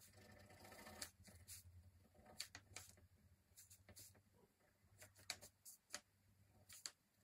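Faint, irregular short scratches of a ballpoint pen (biro) on paper as fine hatching lines are drawn.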